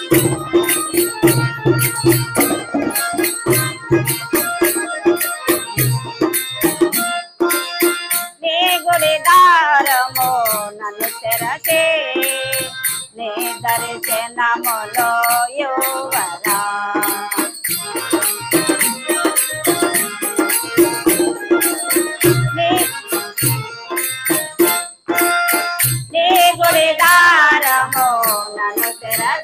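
Telugu devotional bhajan: small hand cymbals jingle in a fast steady rhythm over dholak drum beats. Sung verse lines with falling, ornamented melodies come in about a third of the way through and again near the end.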